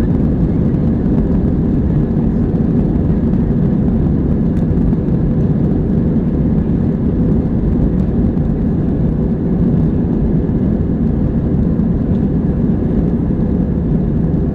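Steady low rumble of an Airbus A321's engines and airflow, heard inside the passenger cabin.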